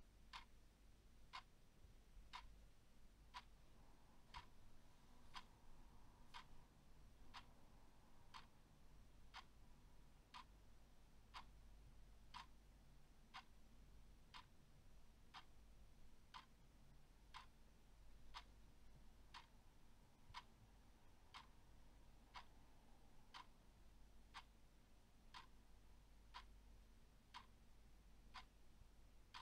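Faint clock ticking steadily, about one tick a second.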